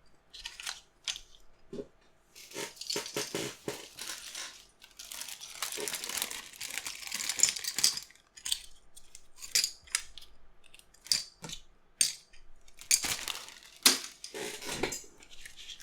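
Handling noises: scattered clicks and taps of hard objects, with several stretches of rustling.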